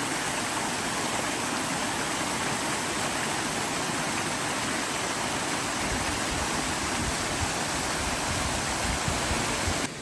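A small waterfall cascade on a mountain stream, with water pouring and rushing steadily into a rock pool. The sound breaks off suddenly just before the end.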